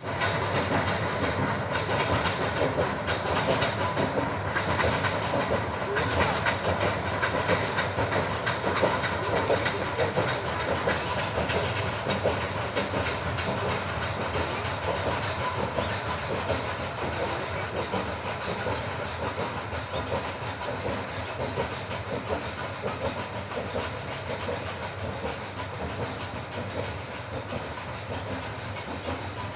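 Nilgiri Mountain Railway X-class steam locomotive working uphill, pushing its train: steady hissing and working noise that slowly grows fainter as it moves away.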